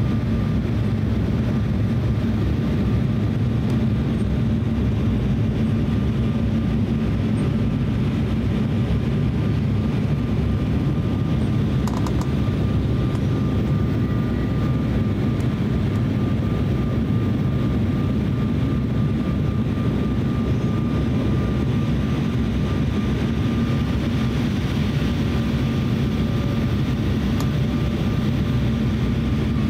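Steady cabin noise inside an Embraer E170 descending on approach: the constant rumble of its two General Electric CF34-8E turbofans and the airflow, with a thin steady whine above it.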